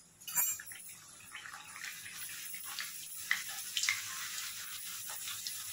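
A puri of wheat dough frying in hot oil in a kadhai: the sizzle jumps up sharply about half a second in, then goes on as a steady hiss with scattered crackles and pops while a slotted spoon presses the puri into the oil.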